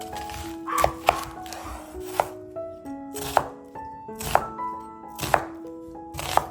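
Knife cutting food on a cutting board: sharp chops about once a second, two in quick succession about a second in.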